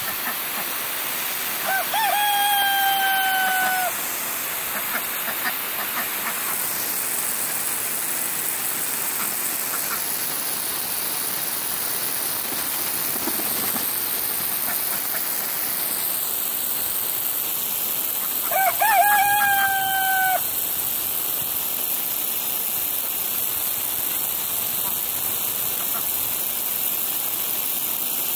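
A rooster crows twice, a couple of seconds in and again about two-thirds of the way through, each crow a drawn-out call of about two seconds. Under it runs the steady hiss of water spraying from a garden hose nozzle.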